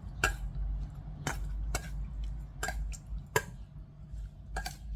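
A spoon stirring cooked pork liver salad in a mixing bowl, clinking against the bowl about six times at uneven intervals.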